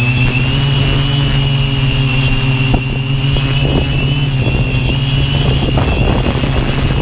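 Multirotor drone's brushless motors and propellers running steadily in flight, heard close up from on board: a steady low hum with a high motor whine over it. Gusty wind buffets the microphone underneath.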